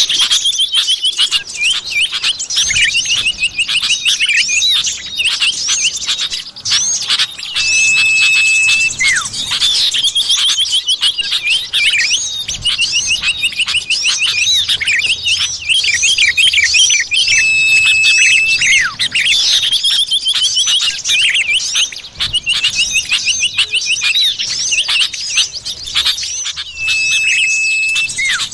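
Common iora (cipoh) calling: dense fast trills and chirps, with a long steady whistle that comes back about every nine seconds, as in a looped bird-lure track.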